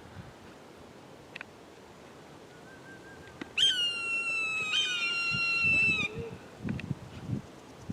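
A large bird calling: two long, loud, harsh calls, the second starting about a second after the first, each falling slightly in pitch. A few low thumps follow.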